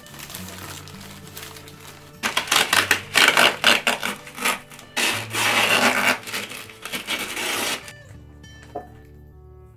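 Masking tape being pulled off the roll in several loud rasping strips, with newspaper crinkling, from about two seconds in until near the end, over steady background music.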